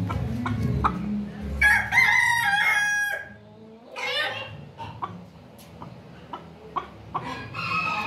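Chocolate Silkie rooster crowing once, starting about a second and a half in and lasting about a second and a half, followed by a few shorter, softer clucking calls.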